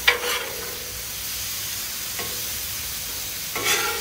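Calf liver slices and onions sizzling on a Blackstone flat-top griddle, with a metal spatula scraping across the griddle surface: two quick scrapes at the start, a faint one about halfway, and a longer scrape near the end.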